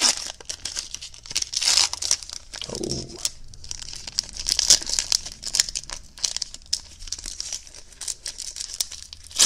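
Foil trading-card pack wrapper being torn open and crinkled by hand: a run of irregular crackles.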